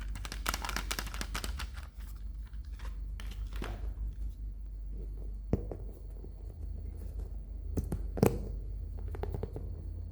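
Toy packaging being unwrapped by hand, with close-up plastic crinkling and tearing. Dense crackling in the first couple of seconds gives way to scattered rustles and taps, with two sharp clicks, one midway and one later.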